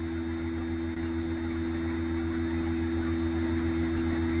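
Steady background hum with two constant tones and a low drone under a faint even hiss, unchanging throughout.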